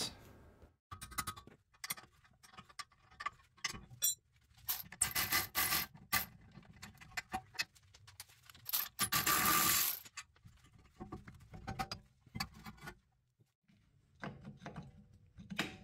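Ratchet wrench clicking and metal tools clinking on a BMW E46 front brake caliper as its 16 mm caliper bolts are undone. The clicks are scattered, with two longer spells of dense clicking about five and nine seconds in.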